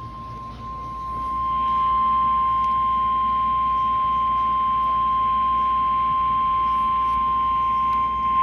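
NOAA Weather Radio 1050 Hz warning alarm tone: one steady, unbroken tone that grows louder over the first two seconds and then holds level. It signals that a warning follows, here a tornado warning.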